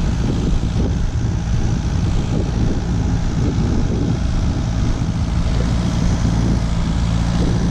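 Steady low hum of a running motor or engine, even and unchanging in pitch.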